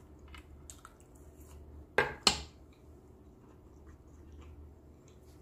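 Metal fork set down on a wooden cutting board: two sharp clacks a fraction of a second apart about two seconds in, with a few faint small clicks around them.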